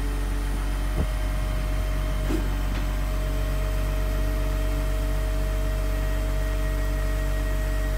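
Caterpillar 7.2 L inline-six diesel of a crane truck running steadily while it drives the hydraulics of an Effer knuckle-boom crane moving its boom and grapple claw, a low rumble with a steady whine over it. A light click about a second in.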